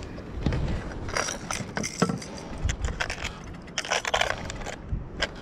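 Irregular light metallic clinks and rattles of fishing tackle being handled, a treble hook being changed on a popper lure, over a steady low rumble.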